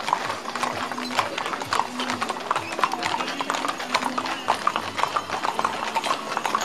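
Hooves of a team of two draft horses clip-clopping on asphalt as they walk, pulling a wagon: a steady run of overlapping hoof strikes.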